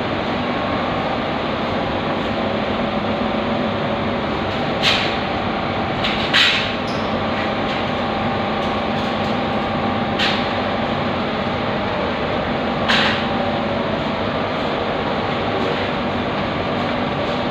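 Refrigeration condensing unit for a chiller cold room running: a steady mechanical hum with several held tones over a noisy whir. Four brief sharp clicks break through it.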